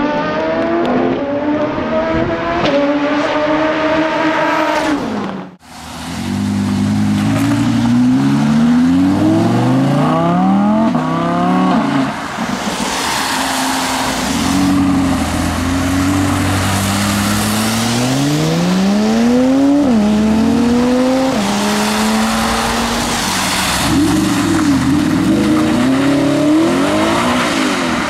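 Several high-performance car engines accelerate hard one after another. Each revs up in a rising pitch and drops back at the gear changes. The sound cuts out briefly about five seconds in.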